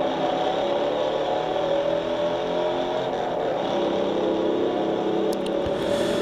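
Film soundtrack of a high-speed car chase: the big V8 engines of a 1968 Ford Mustang fastback and the car it is pursuing, running hard at speed, with the engine note slowly rising and falling.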